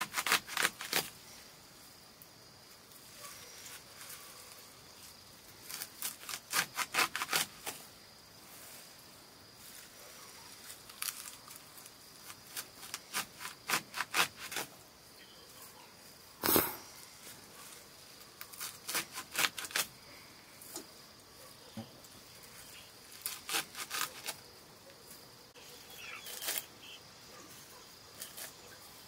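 Fresh leafy greens being cut by pulling bunches against an upturned sickle blade set in a wooden block: quick crisp cutting strokes in runs of several at a time, with pauses between and one single louder cut about halfway through.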